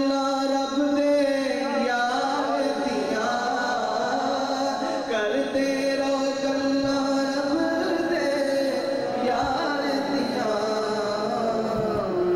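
A man singing a devotional song without instruments, holding long, wavering, ornamented notes that slide from one pitch to the next.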